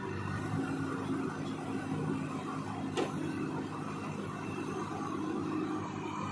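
The diesel engine of a JCB 3DX backhoe loader runs steadily under load as the machine works in deep mud. A single sharp click sounds about three seconds in.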